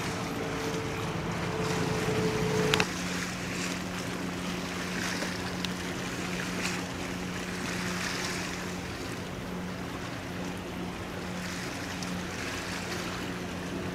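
Tugboat diesel engines humming steadily over wind and the wash of water. About three seconds in, the sound breaks off suddenly and a lower steady hum carries on.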